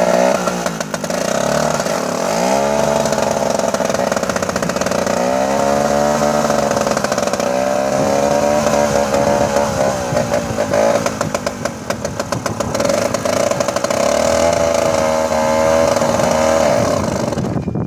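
Engine of an SK-6 Kolos combine running just after a full overhaul of its SMD-62 diesel, its speed rising and falling again and again. The sound cuts off suddenly near the end.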